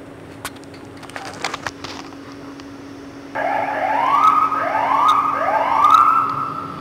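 A siren starts sounding about halfway through, a run of quick rising sweeps that level off and overlap one another. Before it there are only a few faint clicks over a steady low hum.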